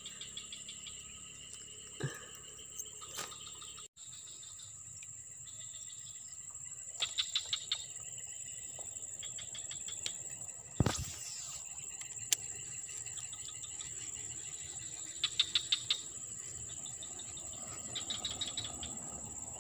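Steady high-pitched insect drone, with short bursts of rapid chirping three times. A single sharp knock about eleven seconds in is the loudest sound, along with a few lighter clicks.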